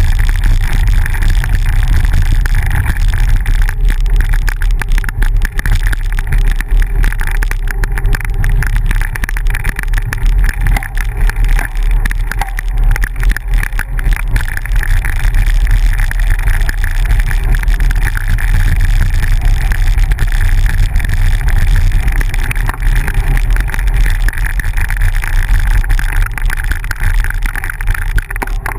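Steady rush of wind buffeting the microphone of a camera on a moving bicycle, mixed with the rumble of tyres rolling over a dirt road.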